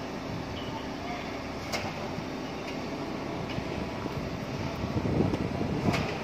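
Rough-terrain crane's diesel engine running steadily under load while it slews a suspended steel truss, growing louder near the end. A couple of sharp metallic clicks, one about two seconds in and one near the end.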